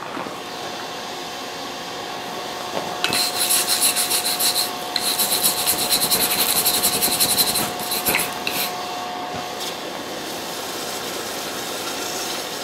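Rapid back-and-forth scraping of metal on metal in two runs of a few seconds each, a few strokes a second, with a last few single scrapes, as the glowing steel knife blade is worked on the anvil before the quench.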